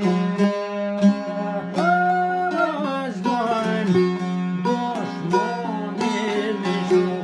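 Folk music on a plucked string instrument over a steady drone note, with quick repeated plucked strokes. About two seconds in, a long, wavering melody line enters, slides down, and returns briefly about five seconds in.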